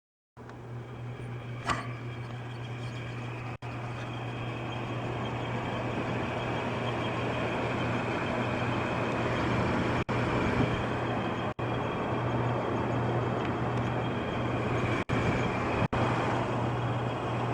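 Air conditioner running: a steady low hum with a rushing of air over it, slowly building louder, and one sharp click about two seconds in. The sound drops out for an instant several times.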